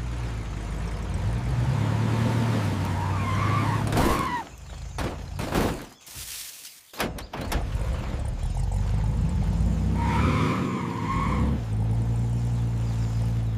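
A vehicle engine running with a steady low rumble that drops out for a few seconds about halfway through, with short squeals twice.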